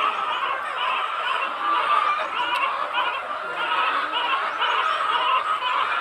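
A flock of chickens clucking and calling continuously, many birds at once.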